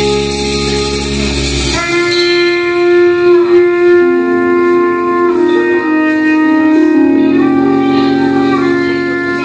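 Live Latin jazz: trumpet and tenor saxophone hold long notes together in harmony, moving to new notes every second or so. About two seconds in, the low bass and cymbal wash cut out, leaving the horns sustaining alone.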